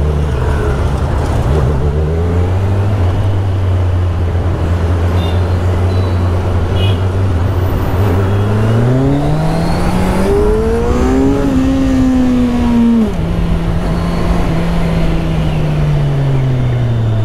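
Kawasaki Z1000SX inline-four engine running at low revs, then accelerating with a rising pitch about eight seconds in, dropping sharply at a gear change about thirteen seconds in, and easing off toward the end. Wind and road noise run underneath.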